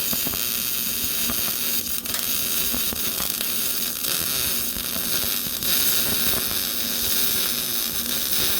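Electric arc welding: the arc runs steadily with a dense crackle as a bead is laid to fill a wide gap in a seam, with a bared welding rod laid in as filler.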